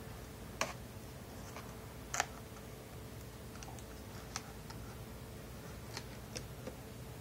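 Scattered light clicks and taps of hands handling laptop screen parts and the screen cable, the sharpest about half a second and two seconds in, over a faint steady hum.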